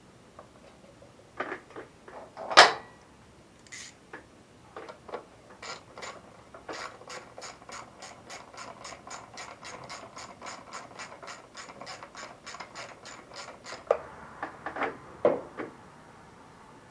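Hand socket ratchet being cranked in a steady run of clicks, about four a second for roughly eight seconds, as a fastener is driven during reassembly. Scattered knocks come before and after it, the loudest a single sharp clunk about two and a half seconds in.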